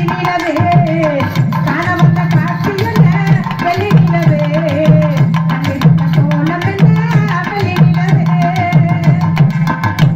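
Tamil folk music for karakattam: a wavering, ornamented melody over fast, steady drumming.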